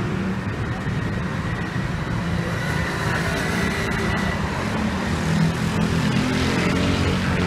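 Steady city street traffic noise: a continuous low rumble of cars passing on the road.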